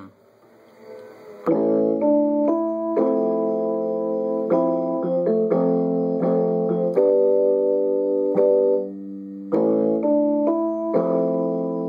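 Electronic keyboard with a piano sound, playing a run of sustained chords that change every second or so. The playing starts about a second and a half in and pauses briefly about nine seconds in.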